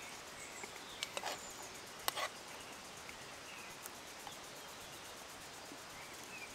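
Quiet outdoor ambience with faint bird chirps, and a few sharp clicks about one and two seconds in from a fork against a small metal camping pan as he eats.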